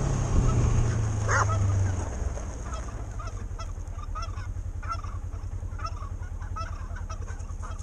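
A flock of white domestic fowl calling in a string of short, repeated calls, with one louder rising call about a second and a half in. Underneath is the steady low running of a utility vehicle's engine.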